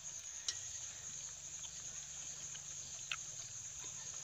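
A steady high-pitched insect drone, with two faint clicks, one about half a second in and one about three seconds in.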